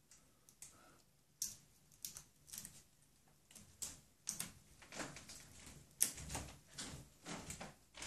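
Amazon parrot working through fresh leafy branches: faint, irregular small clicks and crackles of its beak on stems, with leaves rustling.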